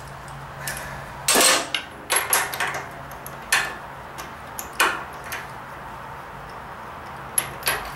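Metal tools clinking and clattering in irregular knocks, the loudest about a second and a half in: a spark plug socket and extension being handled while the old spark plug is worked out of a Kawasaki FC420V small engine.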